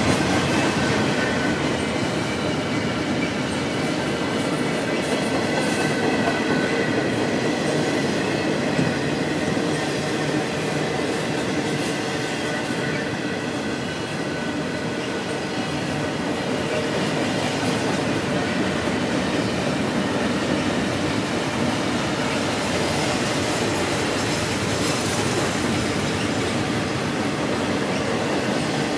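Double-stack intermodal well cars of a CSX freight train rolling past: a steady roar of steel wheels on rail, with faint high wheel squeal, clearest in the first half.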